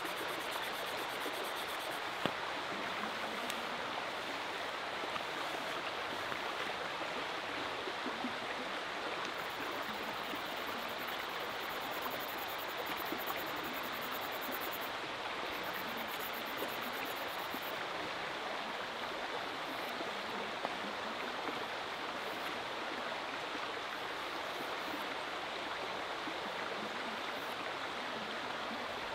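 Small river flowing steadily with an even rushing of water. A few light clicks stand out, the clearest about two seconds in.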